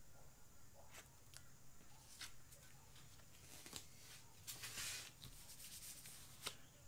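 Faint clicks and rustles from gloved hands handling a plastic swipe card and a metal paint scraper, with a brief soft hiss a little after halfway through.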